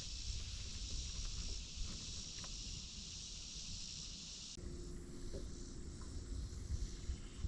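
Steady high insect buzz with low wind rumble on the microphone. About four and a half seconds in, the buzz thins abruptly and a steady low hum starts.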